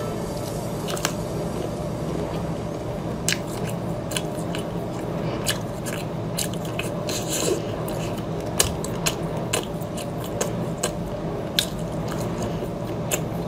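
Cooked tiger prawns being pulled apart, peeled and chewed: a scattered string of sharp shell clicks and crackles with wet chewing, over a steady low hum.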